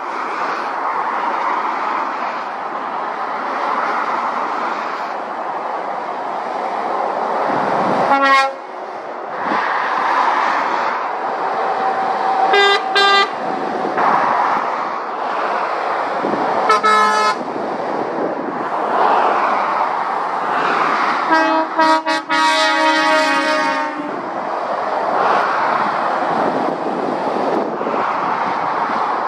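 Steady road noise of lorries and cars passing at speed, swelling as each one goes by. Lorry horns toot four times: three short blasts spread through the first two-thirds, then a longer blast of two or three seconds.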